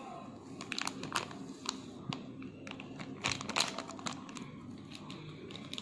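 Plastic instant-ramen seasoning sachet crinkling in the hand as its powder is shaken out, with many small scattered crackles and clicks.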